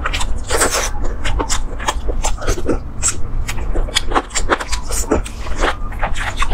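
Close-miked eating sounds: wet chewing and lip smacks as chicken is pulled off the bone and eaten, coming as a quick, irregular run of clicks and snaps.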